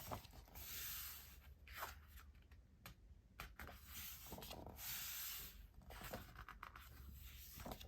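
Glossy photo-book pages being turned and rubbed by hand: soft paper swishes, with two longer ones about a second in and around five seconds in, and small taps between them.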